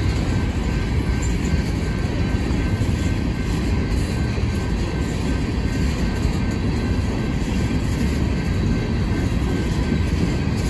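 Empty coal cars of a freight train rolling steadily past: a continuous low rumble of steel wheels on the rails, with faint steady high tones above it.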